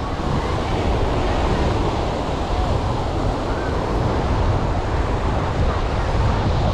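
Sea surf washing steadily onto the beach, with wind rumbling on the microphone.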